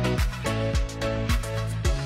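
Music with a steady drum beat, held chords and deep bass notes that slide down in pitch.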